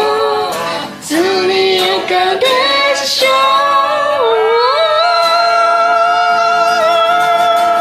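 A woman singing a pop theme song over a karaoke backing track, sliding up into notes twice and then holding one long steady note.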